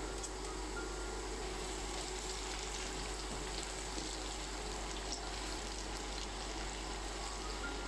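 Steady sizzling hiss of food cooking in a pan, with a few faint light clicks.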